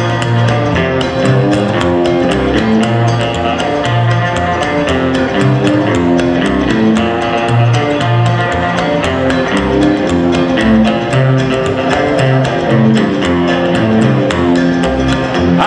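Country band playing an instrumental break with no singing: electric guitar, strummed acoustic guitar and upright double bass over a steady, even beat.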